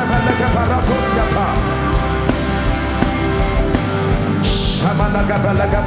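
Live worship band music: sustained keyboard chords held over a steady bass, with a short hissing swell about four and a half seconds in.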